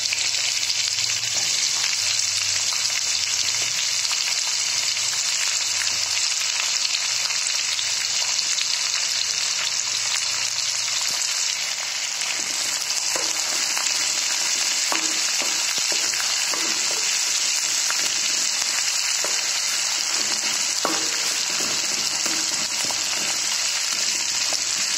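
Sliced onions frying in hot mustard oil in a metal kadhai, a steady sizzle. From about halfway through, a wooden spatula stirs them, with light scrapes and taps against the pan.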